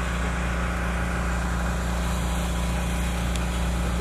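An engine running steadily at a constant speed, a low, even drone.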